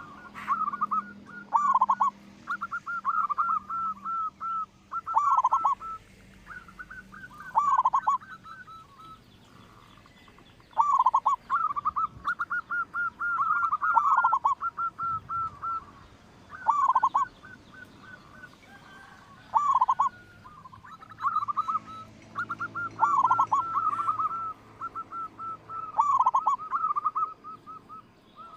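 Zebra dove (perkutut) cooing repeatedly: each phrase is a run of quick clipped notes with a deeper, drawn-down coo, coming back about every three seconds.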